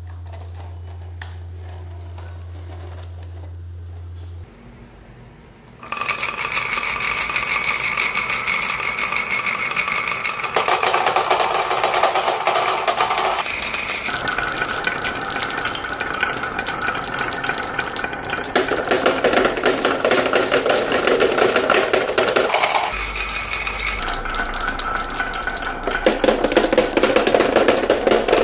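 Many marbles rolling and clattering down a wooden track with winding carved grooves: a dense, continuous rattle of clicks that starts about six seconds in and changes in tone abruptly several times. Before that, only a low hum and a few faint clicks.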